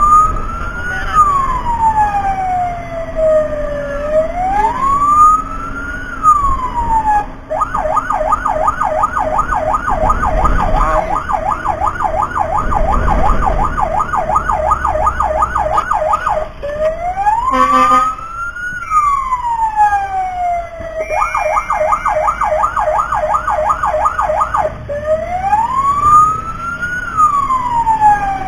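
Emergency vehicle's electronic siren alternating between a slow rising-and-falling wail and a fast yelp, switching modes several times. A single sharp click comes about two-thirds of the way through.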